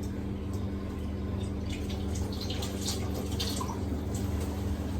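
Light clinks and taps of kitchen utensils being handled, a scatter of them in the middle, over a steady low hum.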